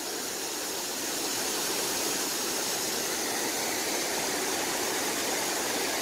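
Waterfall: river water pouring steadily over a low dam's crest in a continuous, even rush.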